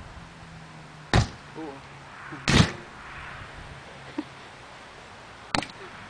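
Disposable butane lighters bursting in a fire pit: three sharp bangs, about a second in, at two and a half seconds (the loudest) and near the end.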